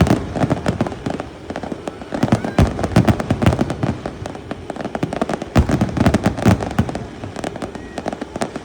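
Fireworks going off in a rapid, dense run of bangs and crackles, heaviest about two to three seconds in and again from about five and a half seconds.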